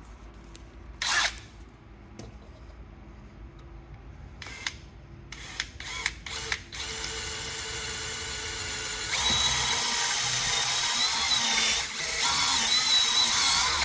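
Cordless drill turning a thin bit through a jig to bore the pin hole in a rifle's front sight post. A few clicks and a short sharp burst come first. The drill starts about seven seconds in and runs louder from about nine seconds, with a thin high whine wavering over it and a brief easing off near twelve seconds.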